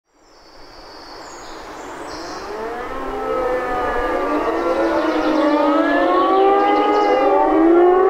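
Several civil-defence sirens wailing at once, their overlapping pitches gliding up and down against each other, growing louder over the first six seconds or so.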